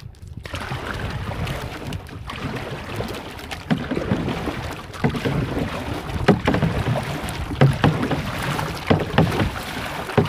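Water splashing and sloshing around a small bangka moving on the sea, with irregular knocks and wind noise on the microphone.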